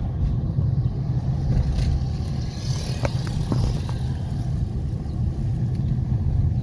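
2013 Honda Civic driving, heard from inside the cabin: a steady low engine and road rumble, with a few light clicks about halfway through.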